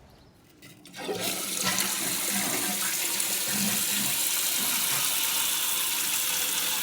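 Water running steadily in a toilet, a loud rushing that starts abruptly about a second in and holds level.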